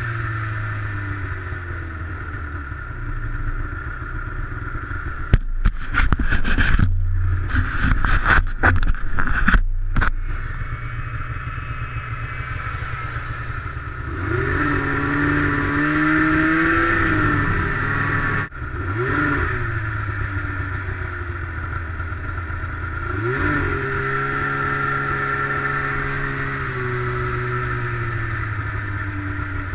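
Two-stroke snowmobile engine running steadily and twice rising in revs, with a burst of loud knocks and rattles about five to ten seconds in.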